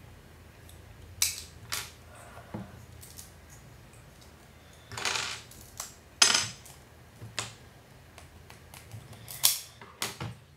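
Plastic Lego bricks clicking and clattering as they are handled and set down: a string of sharp separate clicks, with a longer rattle about five seconds in.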